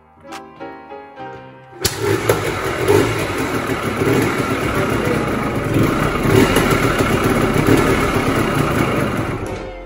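Yamaha Blaster ATV's two-stroke single-cylinder engine, started without the choke, running loudly. It comes in abruptly about two seconds in and breaks off just before the end, after a few seconds of background music with plucked strings.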